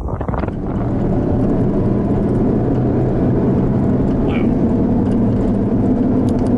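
A vehicle's steady running drone with a low hum. Gusty wind on the microphone dies away about half a second in.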